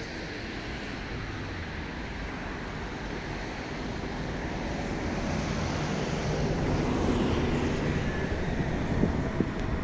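TLK passenger train approaching on the line, a low rumble that grows louder from about halfway in, with the first sharp wheel clicks near the end.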